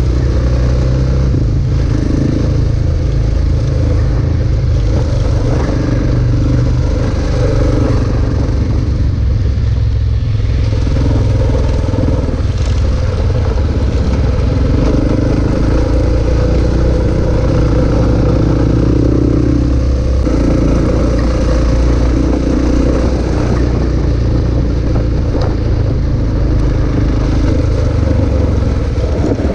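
Motorcycle engine running steadily while riding a dirt track, its note rising and falling a little with the throttle, over a steady rush of wind and road noise.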